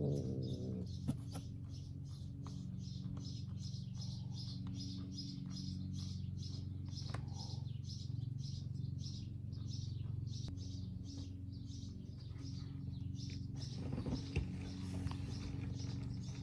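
High-pitched chirping repeating evenly about three times a second over a steady low hum, with a few brief clicks.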